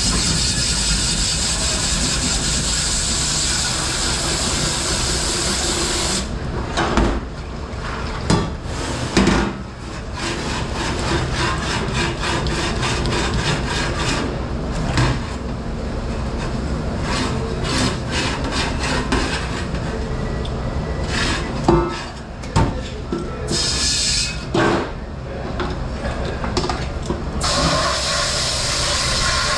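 Commercial dish room work: a hiss of spraying water for the first several seconds, then the repeated clatter and knock of dishes, pans and racks being handled over a steady low hum, with a steady rush of water starting again near the end.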